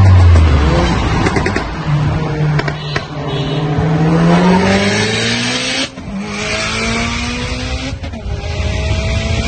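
Car engine accelerating hard through the gears, heard from inside a car's cabin. The revs climb steadily, drop at an upshift about six seconds in and again about eight seconds in, then climb again, over road and wind noise.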